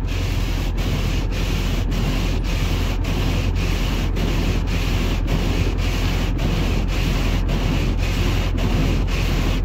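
Windshield wipers scraping back and forth across a frosted windshield, with a short break at each reversal about twice a second. Underneath, the Ford 7.3 Powerstroke V8 turbo-diesel idles with a steady low hum.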